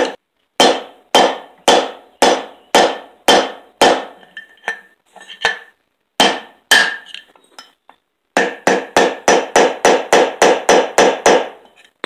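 Hammer tapping on the end of a screwdriver set through a riding-mower wheel hub, driving out the worn front-wheel bushing; each strike rings briefly. Steady taps about two a second, a few scattered lighter ones, then a quicker run of about four a second near the end.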